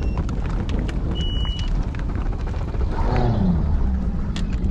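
Mercury outboard motor of a bass boat running steadily just after starting, with a short high beep about a second in.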